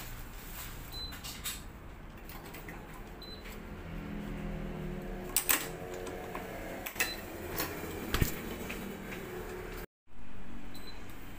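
Tennis strings and stringing-machine clamps being handled while a racquet is strung: string rubbing as it is pulled through, with scattered clicks and taps and a few sharp clicks in the middle. The sound cuts out for an instant near the end.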